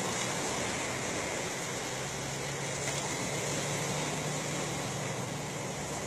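Steady rush of wind and sea noise over the open water, with a low steady hum underneath that grows slightly stronger after a second or two.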